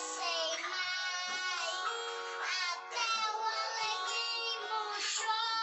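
A children's song playing, with a high, child-like singing voice over instrumental accompaniment.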